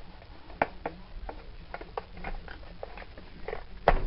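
Scattered plastic-and-metal clicks and knocks from a Kirby upright vacuum cleaner's handle and body being handled while the handle is refitted, with one sharp, louder click near the end.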